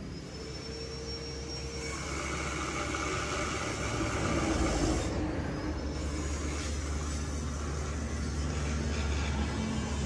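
Motor vehicle engine noise: a steady drone that grows louder over the first few seconds, then holds.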